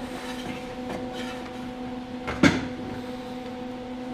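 A steady electrical hum, with a single sharp clunk about two and a half seconds in.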